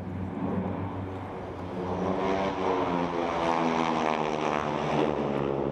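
A propeller airplane's engine droning as it flies past, growing louder about two seconds in, its pitch dropping slightly as it goes by.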